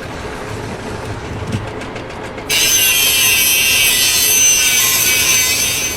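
A power tool cutting or sanding wood: a loud, steady, high-pitched hiss that starts suddenly about two and a half seconds in and stops just before the end.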